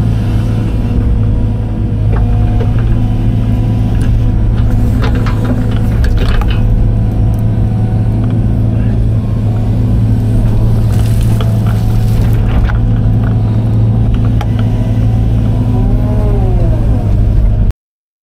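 Case excavator's diesel engine running steadily under digging load, with scattered clanks and scrapes from the bucket working in dirt. Near the end the engine note rises and falls once, then the sound cuts off suddenly.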